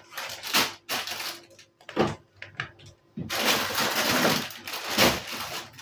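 Crinkling of a plastic bag of grated cheese as it is handled: a few short rustles, then a longer stretch of continuous crinkling starting about three seconds in.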